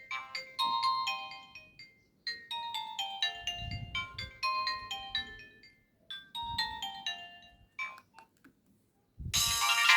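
A Nokia 1661 mobile phone playing a ringtone through its speaker: a short melody of several notes at once, repeating in phrases of two to three seconds with brief pauses. Near the end a different, louder ringtone starts.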